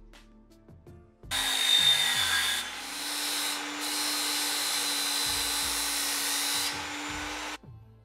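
Electric angle grinder with its disc grinding a thin steel strip clamped in a vise, shaping it into a lock pick. The grinding starts abruptly about a second in, runs as a loud steady hiss over the motor's whine, and cuts off shortly before the end.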